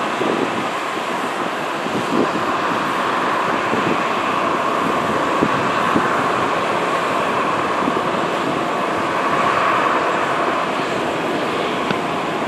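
Boeing 737-700's CFM56-7B jet engines at taxi power, a steady rushing whine, with a few faint knocks in the first half.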